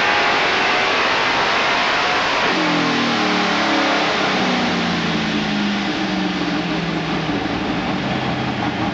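Supercharged Pontiac V8 in a first-generation Firebird running hard at high revs on a chassis dyno; about two and a half seconds in the revs fall away and the engine winds down to a lower, steadier speed as the pull ends.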